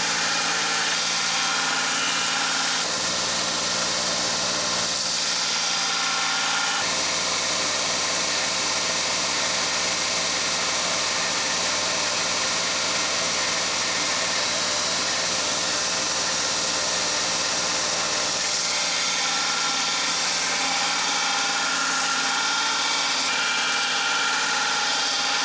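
2x42 belt grinder running steadily, its motor humming and belt hissing, as the tip of an O1 tool-steel blade is pressed against the belt and ground. The grinding sound comes and goes as the blade is lifted off to check the bevel and put back to the belt.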